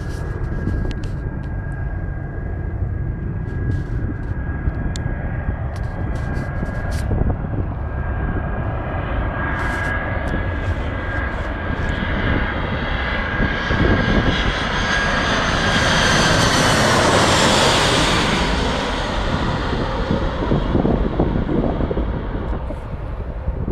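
Airliner on landing approach passing low overhead: a steady engine whine and rising rush of noise that swell to their loudest about two-thirds of the way through, the whine dropping in pitch as the plane passes, then fading away.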